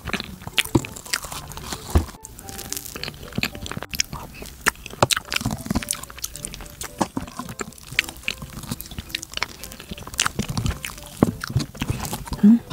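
Close-up mouth sounds of someone eating a soft chestnut cream bread pudding: wet chewing and many small sharp clicks, with a wooden spoon scooping from a plastic cup.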